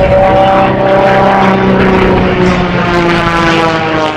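A propeller-driven aerobatic biplane's engine and propeller droning loudly in flight. Its pitch slides slowly down, then rises again near the end.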